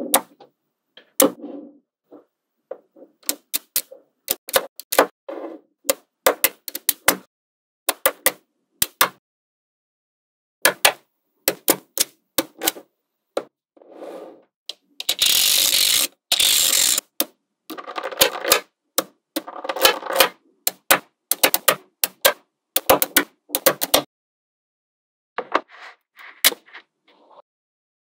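Small magnetic balls clicking sharply as they snap together and are pressed into place, in quick irregular runs with pauses. About halfway there are two louder stretches of dense, hissing rattle, each about a second long.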